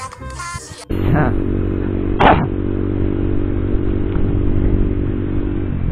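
Background music for about the first second, then a sudden cut to a Honda CB150R's single-cylinder engine running steadily on the move, with wind and road noise on the helmet microphone. About two seconds in there is a brief loud burst.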